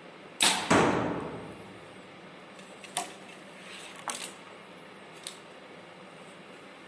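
A bow shot: a sharp snap as the bowstring is released, then a second sharp crack about a third of a second later, fading away over about a second. A few faint clicks follow later.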